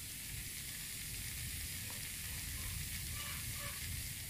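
Rice-flour surabi batter sizzling quietly and steadily as it cooks in a non-stick mini martabak mould.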